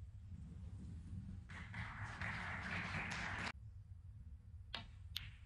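A couple of seconds of audience applause that cuts off abruptly, then two sharp clicks of snooker balls being struck near the end.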